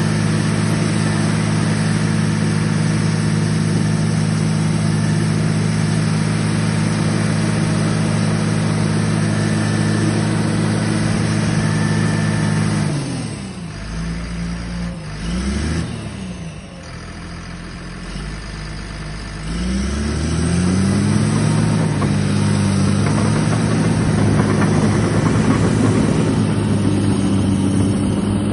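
Caterpillar D5M LGP crawler dozer's diesel engine running at high revs. About 13 seconds in it is throttled down and falls quieter. It revs up briefly, then rises back to high revs about 20 seconds in and stays there as the dozer moves off on its tracks near the end.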